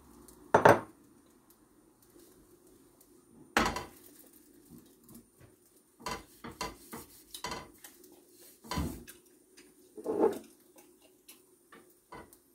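Kitchen utensils knocking and clattering against a non-stick frying pan and the worktop while a chapati is cooked and turned. There are two sharp knocks early, a run of lighter taps about six to seven and a half seconds in, and more knocks near nine and ten seconds.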